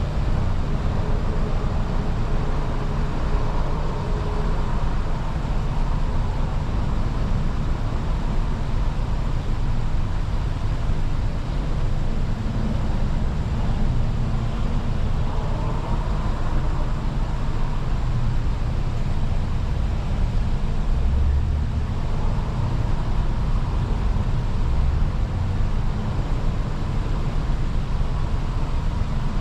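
Car running, a steady low rumble of engine and road noise heard from inside the vehicle.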